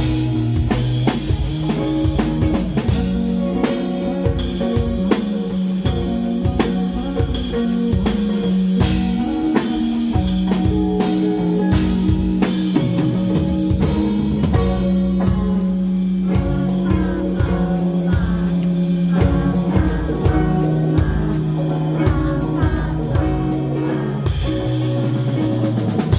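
Background music with guitar and a drum kit keeping a steady beat over held bass notes.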